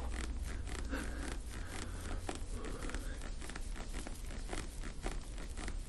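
Scratchy rubbing with many small irregular clicks as hands press and work deep into the muscles of a bare back, over a low steady hum that eases after about two seconds.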